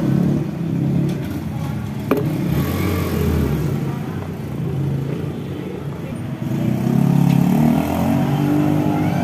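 A motor vehicle engine running and passing, wavering in pitch and getting louder about seven seconds in.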